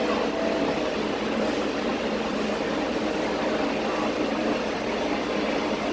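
Steady hum and rush of air inside a people-mover tram car standing at a station.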